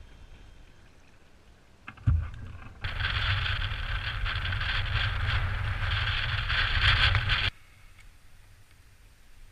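Strong wind, about 20 mph, buffeting a kayak-mounted action camera's microphone, with choppy water splashing. It comes in loud after a single thump about two seconds in and cuts off abruptly about seven and a half seconds in, leaving only a faint low rumble.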